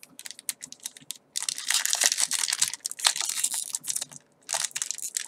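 Foil trading-card booster pack wrapper crinkling and crackling as it is pulled and torn open by hand. A few light ticks come first, then continuous crinkling from about a second and a half in, a short pause near four seconds, and more crinkling at the end; the wrapper is resisting being opened.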